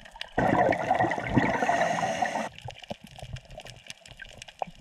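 Underwater recording: a rush of air bubbles that starts suddenly and cuts off after about two seconds, amid faint scattered crackling clicks.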